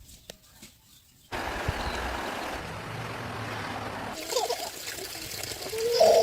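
Running water trickling steadily, starting suddenly about a second in, with a few short voice-like sounds near the end.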